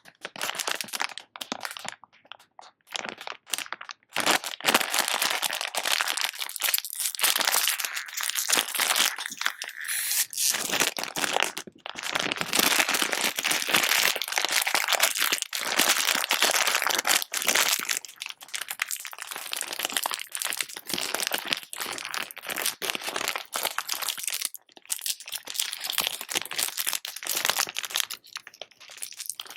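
Packaging wrappers crinkling and crackling as they are handled and torn open, in long irregular spells.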